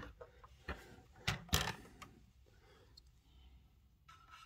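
A few sharp plastic clicks and knocks from a toy X-Wing fighter and its action figure being handled and adjusted in the cockpit. The loudest come between about one and two seconds in.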